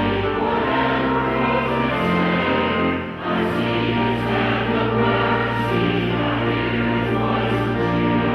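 Choir singing with instrumental accompaniment over a held bass line, a hymn or anthem in a church service.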